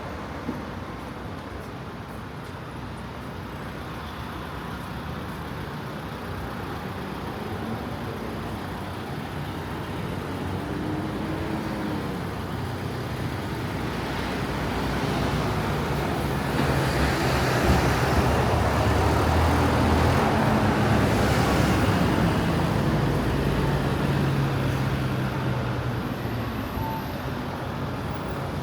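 Street traffic noise, with a motor vehicle passing close: its engine grows louder from about halfway through, is loudest for several seconds, then fades away.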